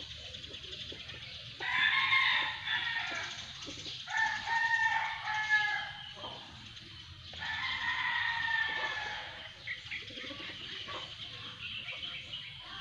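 Rooster crowing three times, each crow a drawn-out pitched call of about two seconds.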